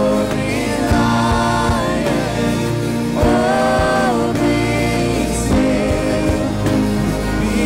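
Live worship song: a man singing into a microphone over strummed acoustic guitar and a Nord Stage 4 keyboard.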